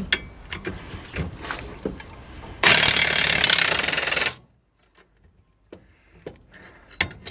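Cordless impact wrench hammering for about a second and a half on a Torx bit clamped in a vise, after a few metal clicks as the socket is fitted onto the bit. A few more metal clicks follow as the vise handle is worked.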